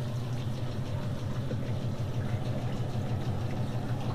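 Gold-processing plant machinery running with a steady low hum, with wash water running over the riffled deck.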